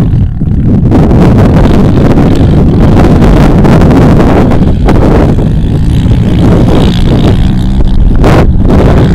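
Honda 450 quad's single-cylinder four-stroke engine running hard as it is ridden across loose sand, heard from a distance under heavy wind buffeting on the microphone.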